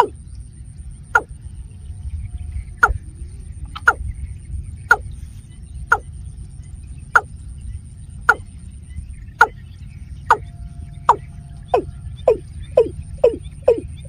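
Watercock calling: a repeated hollow 'kok' note, each falling sharply in pitch, about one a second and quickening to about two a second near the end. A steady low rumble of wind on the microphone lies underneath.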